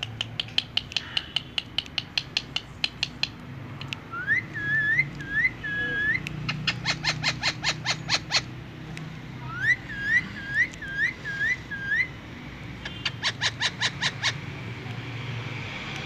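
Indian ringneck parakeet calling: three runs of rapid, sharp chattering notes, about five a second, and two series of short, repeated whistles that rise and then level off, about five in the first and six or seven in the second.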